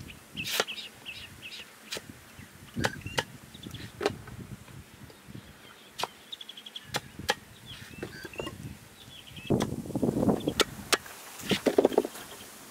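Knife chopping raw green nendran bananas on a wooden stump: irregular sharp chops, each a single knock, with a louder clatter of handling near the end. Birds chirp in the background.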